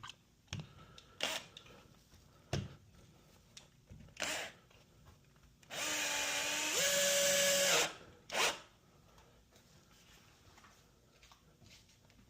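Power drill running for about two seconds, its motor whine jumping up in pitch partway through. Scattered knocks and clicks come before and after.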